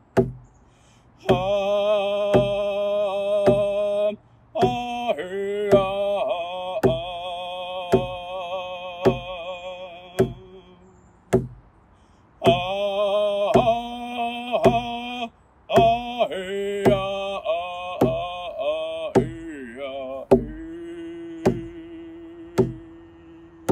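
A man singing a Coast Salish song in long, wavering held notes over a steady drumbeat of about one stroke a second. The voice breaks off for short pauses while the beat keeps going.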